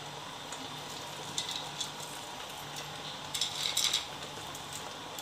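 Fried cashews and raisins sprinkled by hand over cooked biryani rice in a pot: a few short clusters of light clicks and rustles over a faint steady hiss.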